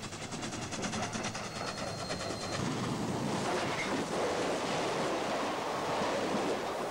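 Southern Pacific Daylight 4-8-4 steam locomotive running at speed. A quick, even rhythmic beat comes first, and then, about two and a half seconds in, a louder steady rush as the locomotive and its train pass close by.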